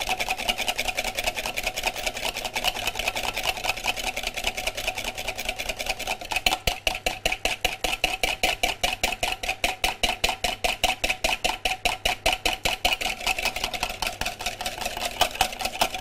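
Wire balloon whisk beating blood-orange juice with soy lecithin in a glass bowl, the wires clicking fast and evenly against the glass at about six strokes a second as the juice is whipped into a foam. The whisking stops right at the end.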